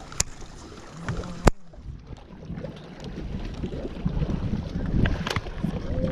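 Wind buffeting the microphone in a fishing boat, a low rumble that grows louder in the second half. Several sharp knocks sound through it, the loudest about a second and a half in.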